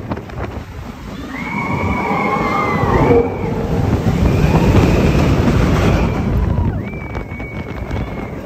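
Expedition Everest roller coaster train running along its track at speed, a loud rumble mixed with rushing air. Long high-pitched tones are held over it three times.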